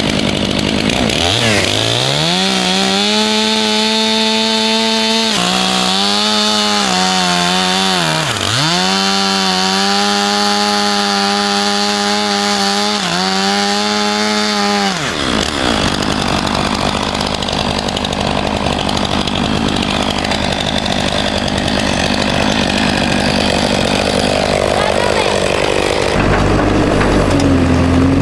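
Chainsaw revving up to full throttle and holding a high, steady whine, its pitch dipping sharply twice, while bucking white pine logs in half. For the second half it runs with a rougher, less even sound, and a low rumble comes in near the end.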